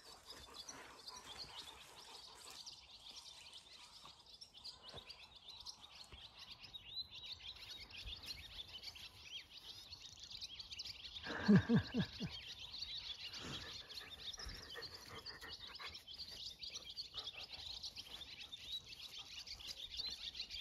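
A flock of swallows twittering and chirping all through, the parent birds calling crossly at a cat. A brief, louder, lower call stands out about halfway through.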